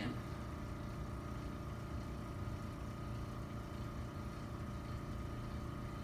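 Steady low mechanical hum with a faint thin high tone, even throughout: room background noise.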